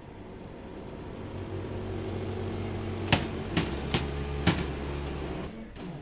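A machine motor runs up and holds a steady low hum, with four sharp knocks in quick succession around the middle, then drops away near the end.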